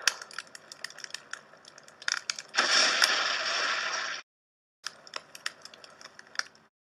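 Outro sound effects of crackling, clicking sparks, with a loud burst of rushing noise about two and a half seconds in that lasts over a second and cuts off suddenly. After a brief silence the sparse crackles resume.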